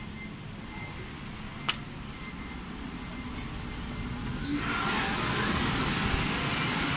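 Quiet street ambience, then a little over halfway through a short sharp sound and the loud, dense din of a pachinko parlour's machines sets in and holds.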